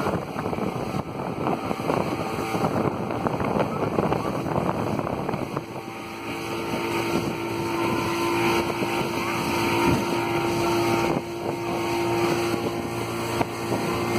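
Pontoon boat's outboard motor running under way over a rushing noise; a steady hum comes up about six seconds in and holds.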